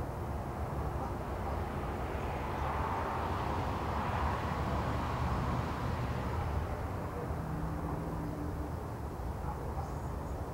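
Distant city ambience heard from a hillside: a steady low rumble of traffic. A louder passing vehicle swells up about two seconds in and fades away a few seconds later.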